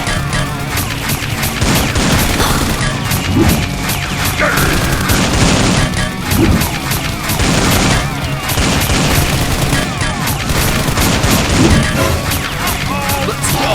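Loud action background music with many rapid shots and crashing impacts over it, as in an edited battle scene.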